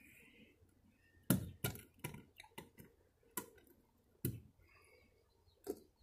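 Small hand tool and outlet parts handled at an RV's exterior outlet box: about eight sharp, irregular clicks and knocks, the loudest about a second and a half in.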